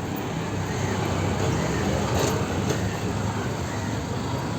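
Street traffic noise: a continuous low rumble of vehicle engines and tyres, swelling slightly about a second or two in.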